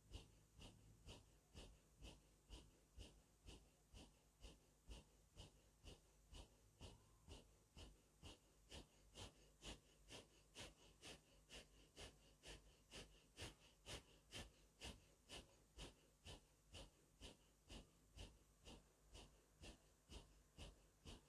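Faint, rapid rhythmic breathing forced in and out through the nose, a little over two sharp breaths a second: the breath-driven silent zikr (zikr-e-khafi) of the Naqshbandi Owaisi path, 'Allah' drawn in and 'Hu' pushed out with each breath.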